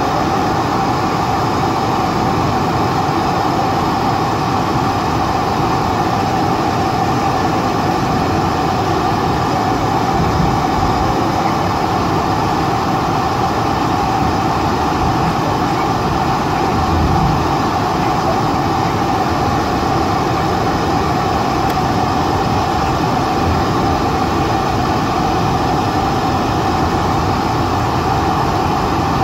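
Steady interior noise of a Boeing 747-400ER taxiing, heard from the passenger cabin: an even rush of engine and air noise with a steady whine that holds one pitch throughout.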